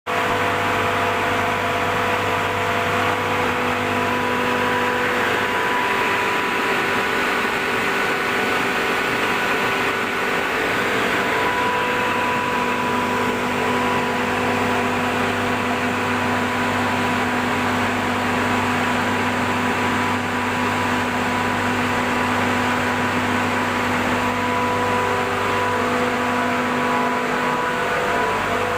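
Steady running noise of a rice-husk-fired steam boiler installation: a constant machine hum with a few held whining tones that fade in and out.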